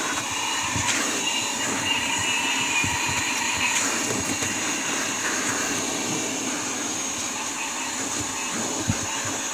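Hyper Tough 1.5-gallon, 2-horsepower wet/dry shop vac running steadily while vacuuming a car's interior: rushing air with a steady high whine from the motor. A short knock near the end.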